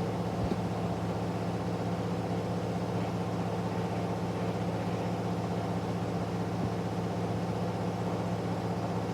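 Candy front-loading washing machine in its final spin, drum and motor running at a steady high speed with an even hum and whine, the load balanced.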